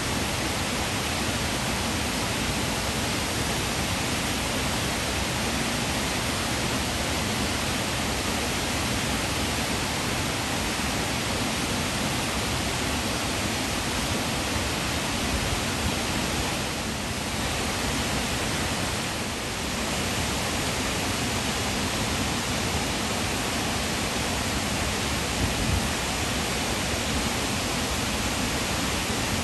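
Steady rushing roar of water pouring over a dam spillway and cascading down the rocks below, briefly softer twice around the middle.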